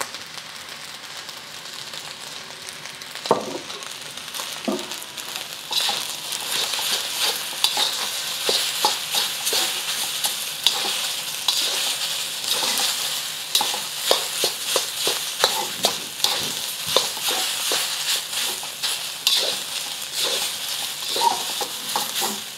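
Rice frying in a hot steel wok, sizzling as a steel spatula scrapes and taps against the pan, stirring and breaking up the grains. The sizzle is quieter at first with a few scrapes, then grows louder about six seconds in, with frequent scrapes and clinks.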